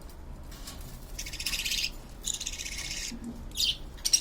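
Baby birds' begging calls: raspy, rapidly pulsed cries in separate bursts, two long ones in the first half, then a short one, then another starting near the end, as the chicks ask to be fed by their mother.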